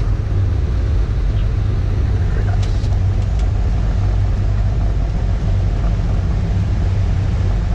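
Steady low rumble heard inside a jet's flight deck during the landing rollout: engine and runway noise as the aircraft decelerates on the ground. A few faint ticks come about three seconds in.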